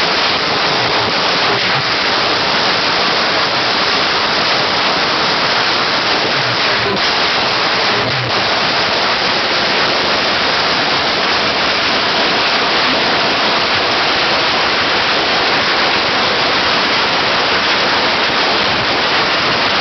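Judas belt firecracker strings and fireworks going off all around at once, heard as a loud, unbroken crackle, with a couple of sharper bangs about seven and eight seconds in.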